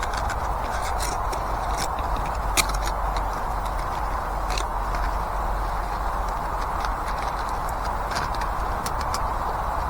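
Wood campfire burning: a steady hiss with scattered sharp crackles and pops.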